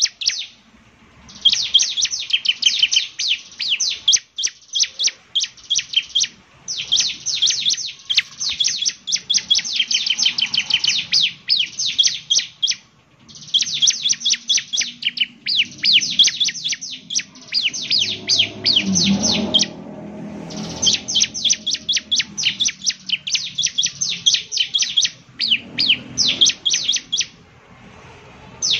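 Bar-winged prinia (ciblek) singing: long, fast, high-pitched trills of sharp descending notes, in runs of several seconds broken by short pauses.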